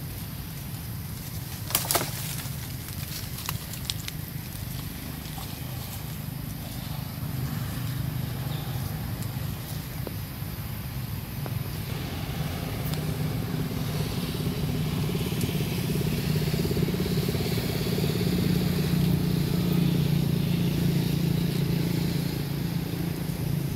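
An engine running steadily, growing louder over the second half, with a sharp click about two seconds in.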